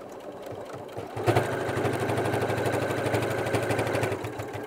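Electric sewing machine stitching through layers of denim. It starts slowly, speeds up about a second in to a louder, fast, even run of stitches, and eases off near the end.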